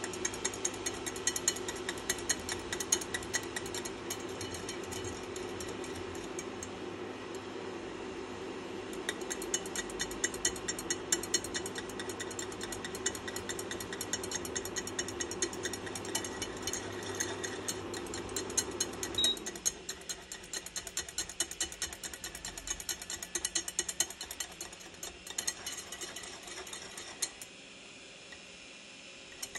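Coil whisk beating a frothy liquid in a saucepan, a fast steady clicking and sloshing as the wire spring strikes the pan, easing off near the end as the whisk is lifted out. Under it a steady low hum stops abruptly about two-thirds of the way through.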